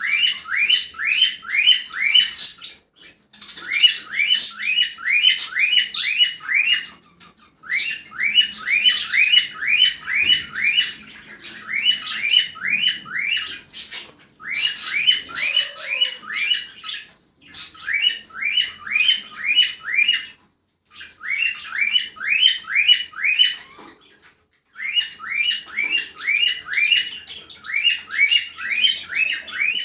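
Cockatiels calling: a fast run of short, upward-sweeping squawky chirps, about four a second, in bouts of a few seconds broken by brief pauses.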